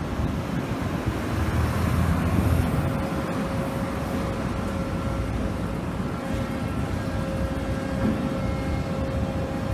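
Machinery of a moored bulk carrier unloading with a clamshell grab crane: a steady mechanical drone with a held whine over a low rumble. The rumble swells a little between about one and a half and three seconds in.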